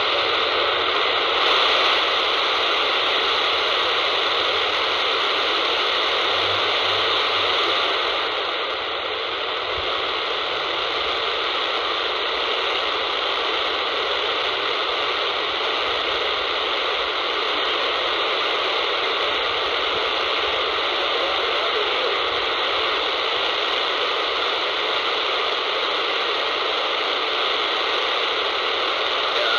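RadioShack Pro-651 scanner tuned to 27.635 MHz AM on the 11-metre freeband, its speaker putting out steady static hiss with no signal on the channel.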